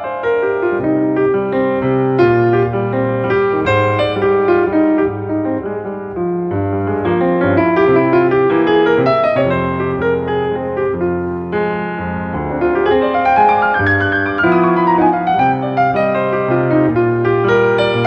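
Solo piano background music, a flowing melody over a bass line, with a run of notes rising and falling about two-thirds of the way through.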